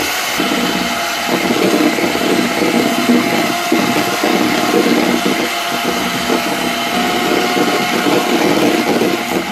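Electric hand mixer running steadily, its twin beaters whipping egg whites with icing sugar in a plastic bowl: the whites are being beaten to stiff, snow-like peaks.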